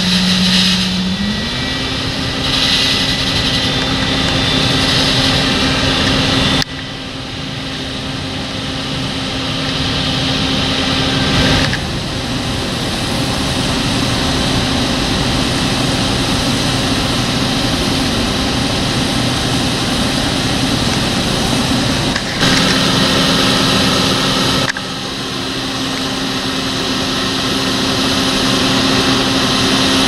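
John Deere 6215R tractor engine running at high, steady revs to drive a Cestari chaser bin's unloading auger, with a hiss of wheat pouring into a tipper trailer. The engine note climbs in the first second or two, then holds, and the sound breaks off and resumes abruptly a few times.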